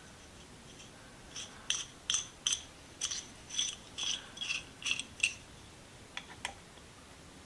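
Oil being put into a restored adjustable wrench: a run of about a dozen short, ringing metallic clicks, roughly three a second, then a few fainter ticks.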